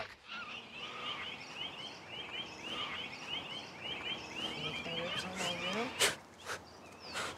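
Birds chirping in quick repeated calls over quiet outdoor ambience, followed by two sharp clicks about six seconds in.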